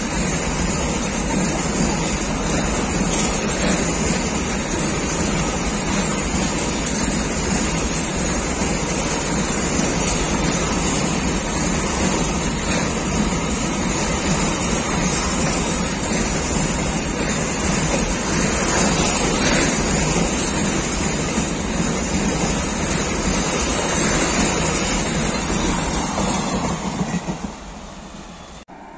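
Enclosed car-carrier freight wagons rolling past at speed on the adjacent track: a loud, steady rumble and rush of wheels on rail, which drops away sharply near the end as the last wagon goes by.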